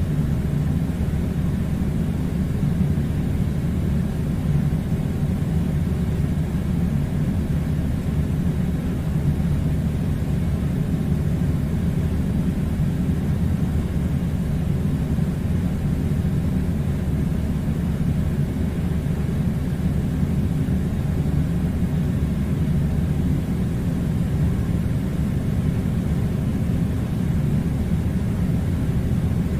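Air conditioner running with a steady low rumbling hum that does not change.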